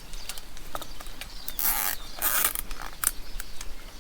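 Plastic cable tie being pulled tight, ratcheting through its lock in two raspy zips, among small clicks and knocks of plastic irrigation fittings being handled.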